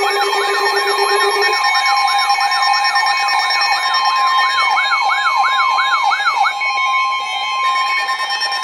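Layered electronic alert tones: several steady tones sound together under a siren-like pitch sweep that repeats about three times a second. The sweep stops about two-thirds of the way through, and the steady tones carry on.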